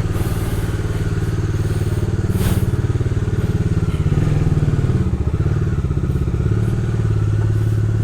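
Bajaj Dominar 250's single-cylinder engine running steadily as the motorcycle is ridden off, with a fast even firing pulse that shifts a little in pitch as the rider changes speed.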